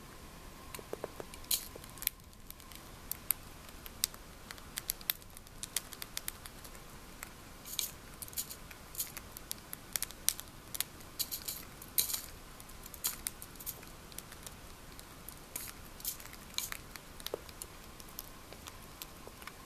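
Cockatiel pecking and crunching pellet food from a plastic dish: irregular sharp beak clicks and cracks, sometimes several a second, with short pauses.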